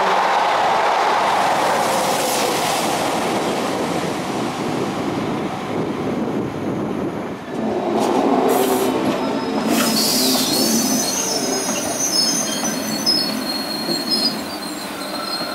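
A double-deck electric commuter train running on the track, then a slow train of double-deck coaches with an SNCF BB 7600 electric locomotive rolling through the station, its wheels squealing on the rails in thin high-pitched tones from about ten seconds in.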